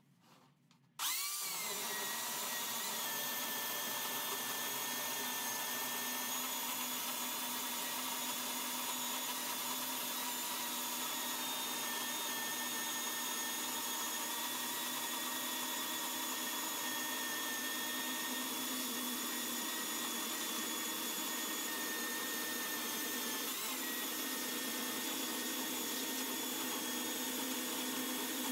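Electric chainsaw on a homemade chainsaw mill starting up about a second in, then running steadily as it rips lengthwise through a log, a steady high whine with a brief wobble in pitch a few seconds before the end.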